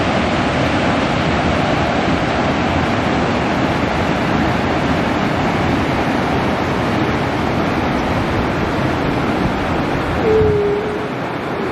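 Waterfall and whitewater cascading over rocks: a loud, steady rushing. About ten seconds in, a brief clear tone, slightly falling, sounds over the water and is briefly the loudest thing, after which the rushing eases a little.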